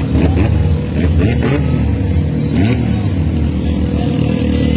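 Off-road vehicle engine running steadily.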